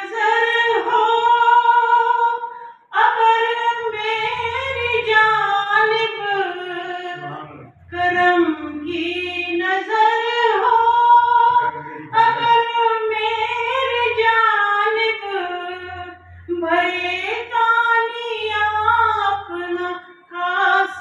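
A woman singing an Urdu naat, a devotional song, in long drawn-out phrases with short breaks between them.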